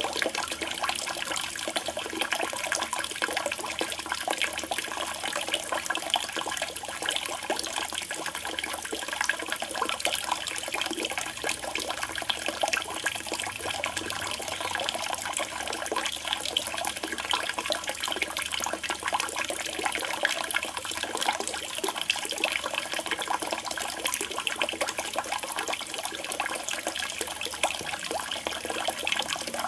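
Water running and splashing steadily into a koi pond, an even trickling and gurgling with no let-up.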